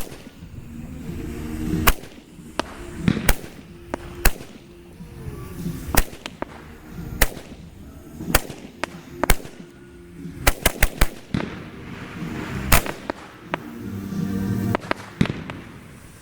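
Royal Fireworks 16-shot 'Silent Trails' fireworks cake firing its shots one after another: sharp bangs every second or so, with a quick run of several together about ten to eleven seconds in. Background music plays under the bangs.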